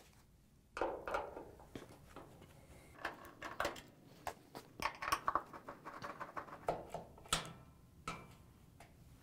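Phillips screwdriver turning screws out of an LG dryer's sheet-metal rear panel by hand: a string of faint, irregular clicks and scrapes, with one sharper click about seven seconds in.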